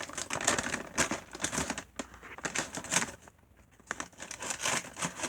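Christmas wrapping paper crinkling and rustling in irregular spurts as a wrapped box is opened, with a brief lull about halfway through.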